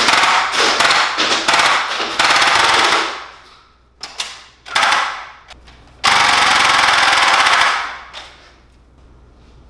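Air Warriors Ultra Tek Destiny, an air-powered pump-action dart blaster, firing full-auto in rapid bursts of very fast shots. Several short bursts come in the first three seconds, two brief ones at about four and five seconds, and one long burst of about two seconds that stops near eight seconds.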